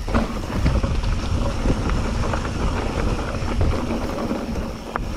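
Mountain bike riding down a rough dirt trail: a steady rumble of tyres over the ground, with the bike rattling and knocking over bumps and roots, and wind buffeting the microphone.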